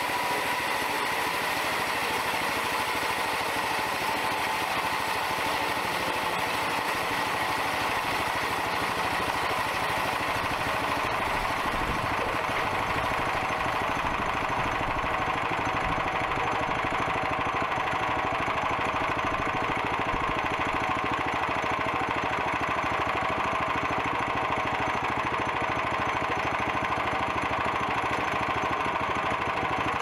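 Homebuilt band sawmill running steadily, its small gasoline engine driving the band blade through a log. A high hiss over the engine eases somewhat about halfway through.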